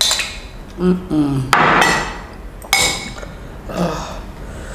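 A metal spoon and a white ceramic sauce boat clink against a china plate as sauce is poured and scraped out: a sharp ringing clink at the start and another about three seconds in. A short hummed vocal sound comes about a second in.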